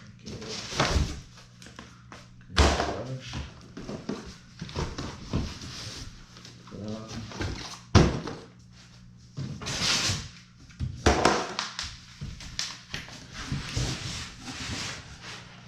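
Cardboard box and packaging being handled and opened: irregular rustling and scraping with several sharp thumps, the loudest about two and a half and eight seconds in.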